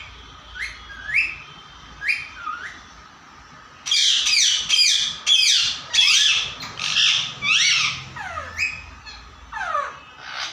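Pet parrot calling: a few separate sweeping squawks, then a rapid run of loud screeching calls from about four seconds in to past eight seconds, and two more squawks near the end.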